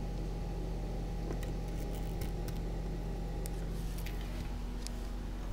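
A steady low hum with a few faint, sharp ticks and scrapes scattered through it.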